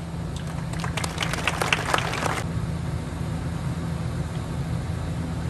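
A crowd clapping briefly for about two seconds, then stopping, over a steady low hum.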